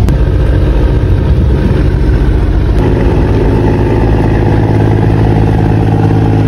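Fishing vessel's inboard diesel engine running steadily with a loud, low drone. About three seconds in the sound changes abruptly to a steadier, more clearly pitched engine note.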